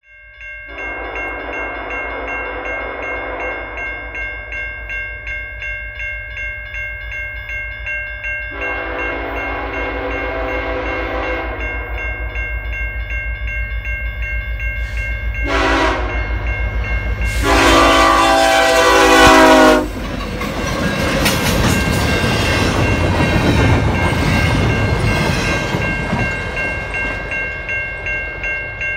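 Diesel freight locomotive's air horn sounding the grade-crossing signal: two long blasts, a short one, then a final long blast, the loudest, over a ringing crossing bell. The horn cuts off about 20 seconds in, and the train's rumble and wheel noise follow as it passes the crossing.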